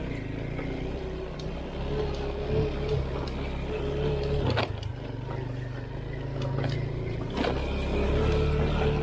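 All-wheel-drive off-road motorcycle's engine running at low, rising and falling revs while riding, with two sharp knocks, one about halfway through and one a few seconds later.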